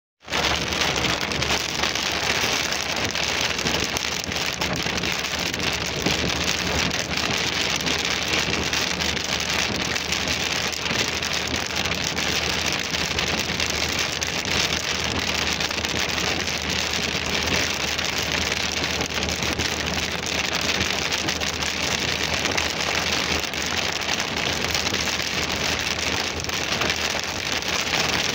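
Very heavy rain pelting the roof and windscreen of a moving car, heard from inside the cabin: a dense, steady hiss of drops, with a low, steady hum beneath from the car on the wet road.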